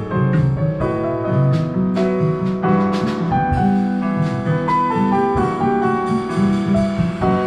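Jazz piano trio played by automated instruments: a self-playing grand piano leads over upright bass and drums, with sharp cymbal-like strokes in the first half.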